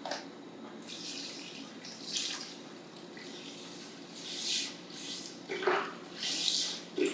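Beef broth being poured into a large stock pot of soup ingredients, the liquid splashing in several uneven gushes.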